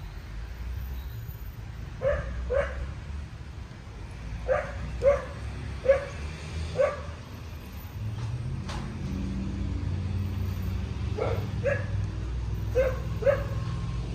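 A dog barking in short, sharp pairs, about ten barks in all, with a gap in the middle. Under the barks there is a low steady rumble, which gets louder from about eight seconds in.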